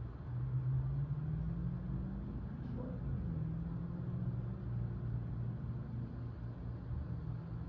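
A low, steady mechanical drone whose pitch wavers slowly, with a faint click about a third of the way in.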